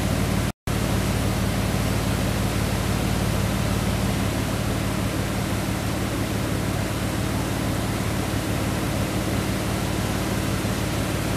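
Flooded Sabinal River rushing over a low-water road crossing: a steady, loud roar of water with a steady low hum beneath it. The sound cuts out for a moment about half a second in.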